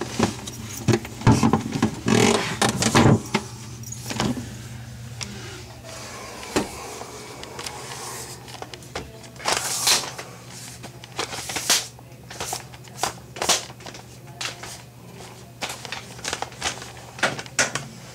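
Irregular knocks, clicks and scrapes of hands and parts being handled during pop-up drain work under a bathroom sink, over a steady low hum. The heaviest bumps come about one to three seconds in, and sharper separate clicks follow from about ten seconds on.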